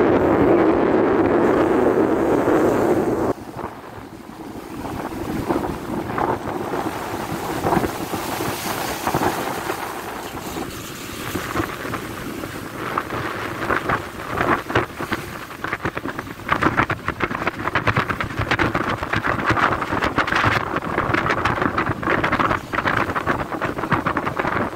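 Wind buffeting the phone's microphone on the deck of a ship in rough sea, with the rush of white water along the hull. It is a heavy steady rush for the first few seconds, then comes in crackling gusts.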